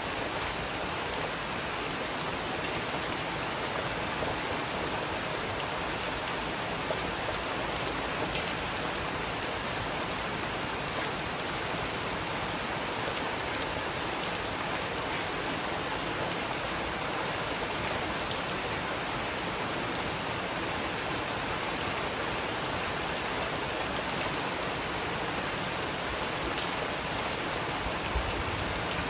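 Steady rain falling, an even hiss, with a few sharp pops here and there from a crackling wood fire.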